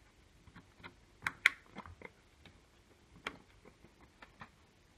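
Irregular small plastic clicks and taps as the plastic frame of a car odometer LCD is fitted back together by hand. The loudest two come close together about a second and a half in, with another sharp click near the middle.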